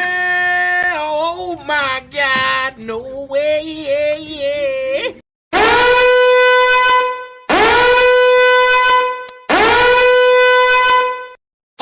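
Meme sound effects: first a pitched sound that wavers and bends up and down. After a short break come three long horn blasts, each swooping up into one held note, about two seconds apart.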